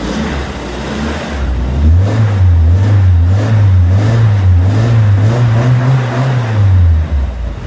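1970 Triumph Spitfire's four-cylinder engine, breathing through tubular headers into the stock muffler, being revved. The revs climb about two seconds in, rise and fall several times, and drop back toward idle near the end.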